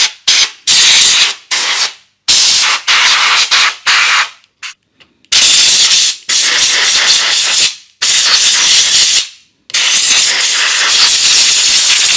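Compressed-air blow gun from an air compressor, run at low pressure, hissing in repeated blasts as it blows dust out of a valve radio chassis. The first few blasts are short quick squirts; the later ones are longer, one to two seconds each.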